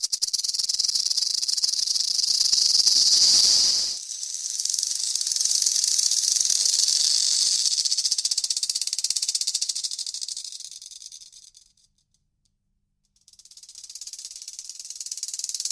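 Rattlesnake shaking the rattle on its tail: a continuous high, rapid buzz. It dips briefly about four seconds in, fades out after about eleven seconds, and starts up again after a second of silence.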